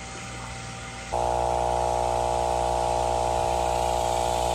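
A steady low mechanical drone made of many held tones, starting abruptly about a second in and holding level throughout.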